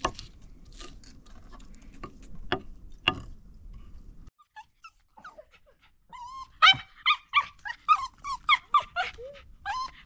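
A few sharp knocks, then in the second half a dog whimpering and yipping in short, high cries repeating about three times a second.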